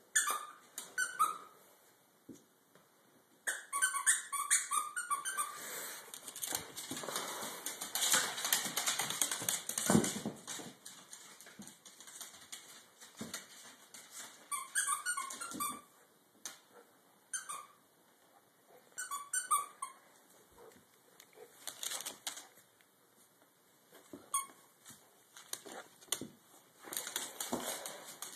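Small dog chomping a rubber squeaky toy, setting off clusters of quick squeaks again and again, between stretches of scrabbling and clicking on a hardwood floor.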